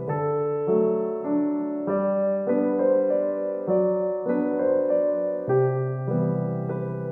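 Background music: a gentle keyboard piano tune, with notes and chords changing about every half second.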